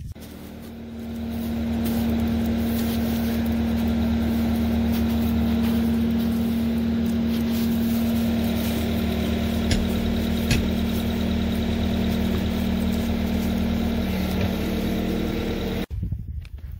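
An engine idling steadily at an even pitch, with two short clicks about ten seconds in; it starts and stops abruptly at cuts.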